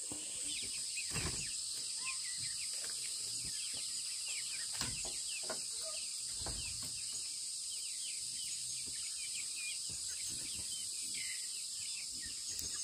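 Forest ambience: a steady high insect drone, with many quick, short, high chirps from birds throughout and a few dull thumps.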